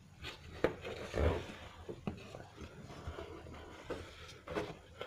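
Cardboard drone packaging being handled and opened: scattered light knocks and scrapes, with a brief rustle about a second in.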